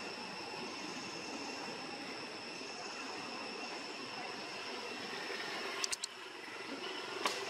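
Steady tropical-forest ambience: an even hiss with a constant high insect drone, broken by two sharp clicks near the end.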